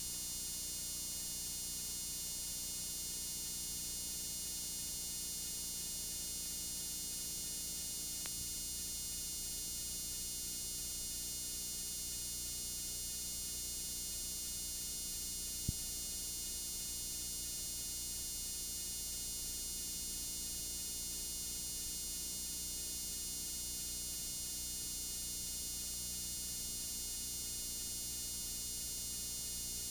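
Steady electrical hum and hiss from a blank stretch of analog videotape playback, with no program sound. A faint click comes about eight seconds in and a single sharp tick about halfway through.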